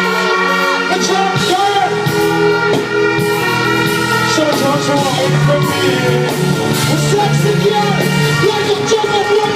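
Live dancehall music: a singing voice over the backing track's sustained keyboard chords and beat.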